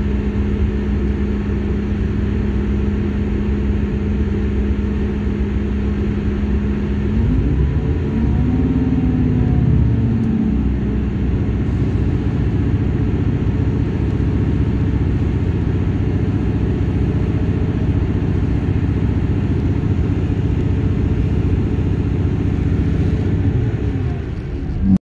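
Class 158 diesel multiple unit heard from inside the carriage: the underfloor diesel engine drones steadily over constant wheel-and-track rumble, and its note rises about seven seconds in, then holds.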